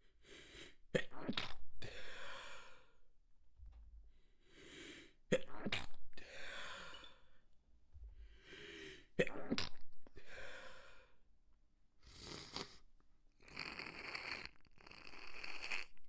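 Stifled sneezes: three times a breathy intake builds up and ends in two quick, sharp, held-back sneeze bursts, then longer breathy sounds near the end.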